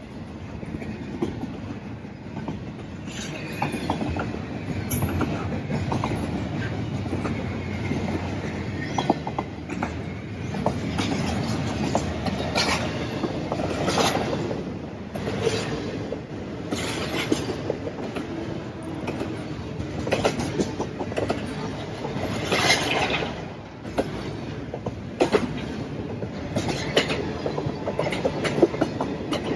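CSX freight train's mixed freight cars rolling past close by: a steady rumble of steel wheels on rail, louder from about three seconds in, with irregular clanks and clicks over the rail joints and now and then a brief wheel squeal.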